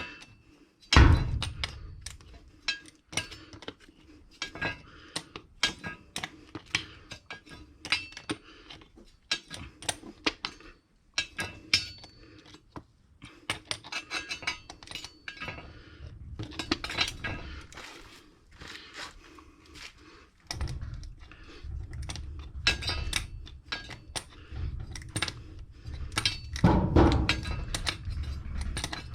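Adjustable wrench (shifter) working the nut of a Dynabolt sleeve anchor to tighten a shed wall bracket down: many short metallic clinks at irregular intervals, with a low rumbling noise underneath in the last third.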